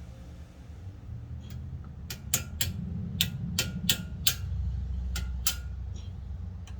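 About ten sharp metal clicks and clinks of hand tools on brake parts, coming irregularly and thickest in the middle, over a low rumble.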